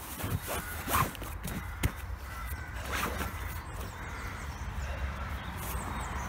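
Handling noise from an inflatable canoe seat being fitted: fabric rustling, webbing straps pulled and plastic buckles knocking, with a few sharp knocks, the loudest about a second in.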